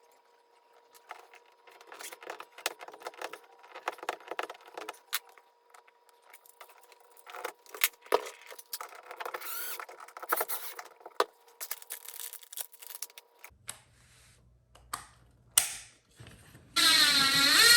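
Irregular small clicks, rattles and rustling with a few sharp snaps from hand work terminating a Cat6 Ethernet cable with a terminating tool kit, over a faint steady hum that stops near the end. A man's voice comes in just before the end.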